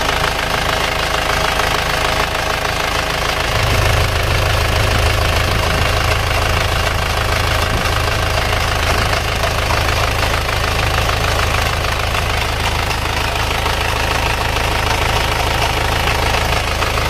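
Isuzu Panther turbo-diesel engine idling evenly. About three and a half seconds in, a deeper low pulsing grows much louder as blow-by gas puffs from the oil filler opening under the lifted cap. This is a sign that compression is starting to leak past the rings.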